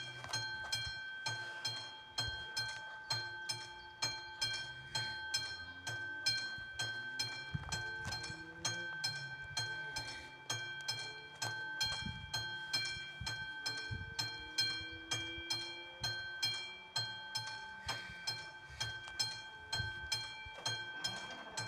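Czech level-crossing electronic warning bell ringing: a rapid, evenly repeated ding at a fixed pitch, sounding while the crossing is closed.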